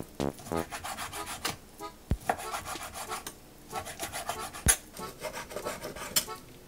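A Tramontina vegetable knife slicing raw chicken thigh on a wooden end-grain cutting board: rasping cuts through the meat, with a few sharper knocks where the blade meets the wood.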